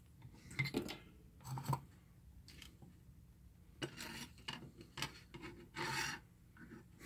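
A handful of faint, brief scrapes and rubs as hands slide a circuit board and small parts around on a wooden workbench.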